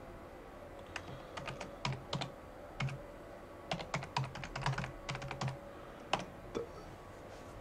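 Typing on a computer keyboard: a login and password being keyed in, in short runs of quick keystrokes with brief pauses between them.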